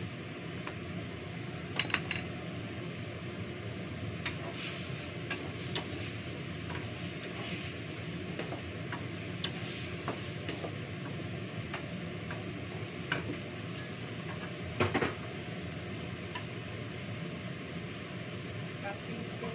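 Stir-frying in a wok: a metal spatula scrapes and clinks against the pan over a steady background hiss, with a few sharper metallic clinks, the loudest about 2 and 15 seconds in.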